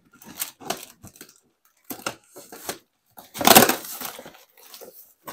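Cardboard delivery box being cut and torn open: a run of short scraping rips, the loudest and longest about three and a half seconds in.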